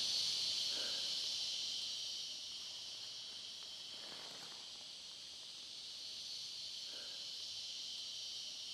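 Steady high-pitched insect chorus shrilling in the trees, with a few faint brief sounds underneath.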